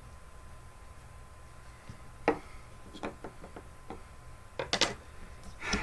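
A few light wooden clicks and knocks over a quiet background: one sharp click about two seconds in, a few softer ones a second later, and a short cluster near the end. These are a hand-drill fire set's wooden spindle and hearth board being handled as the drilling pauses.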